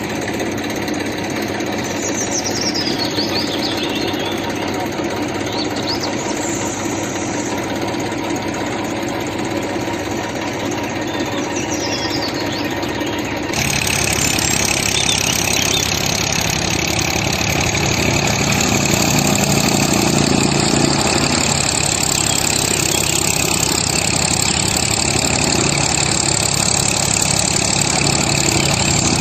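A motor running steadily, louder and fuller from about halfway through.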